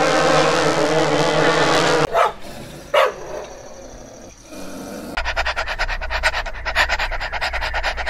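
Honeybees at a hive entrance buzzing in a steady, dense hum that cuts off about two seconds in. Then a Doberman makes two short sounds about a second apart, and from about five seconds in a dog pants quickly and evenly.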